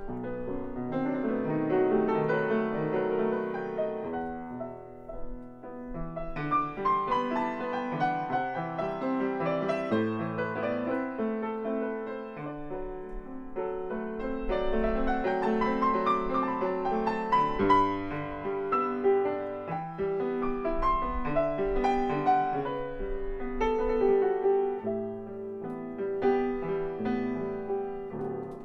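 Steinway & Sons Model M grand piano being played: a continuous flowing passage of chords and melody, with notes ringing on under the sustain.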